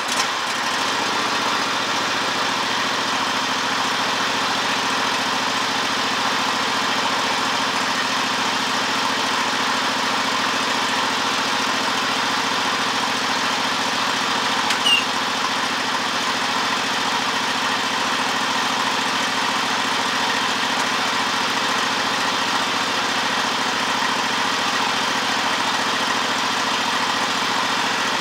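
Garden tractor engine running steadily while its rebuilt Hydro-Gear hydrostatic transmission is cycled with the release (bypass) rod pulled out, to purge air from the new oil. A brief sharp chirp about halfway through.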